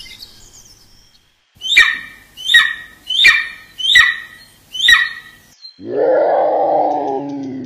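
A Harris's hawk gives five short screeching calls about two-thirds of a second apart, each dropping in pitch. Near the end, a Eurasian lynx starts a long, low call.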